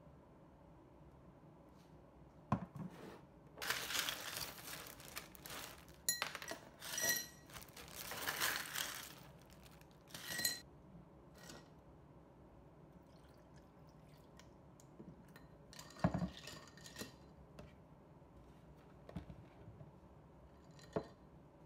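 Ice cubes scooped out of a plastic zip-top bag and dropped into a drinking glass, clinking and clattering against the glass in several bursts over about eight seconds. A single sharp knock with a short clatter follows later.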